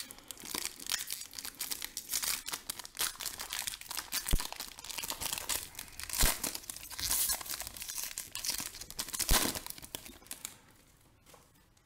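Foil wrapper of a Panini Optic basketball card pack being torn open and crinkled by hand, a run of sharp crackles and rustles. It dies away about ten and a half seconds in.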